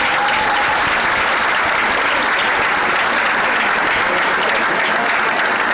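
A large crowd applauding steadily, greeting a speaker who has just been introduced.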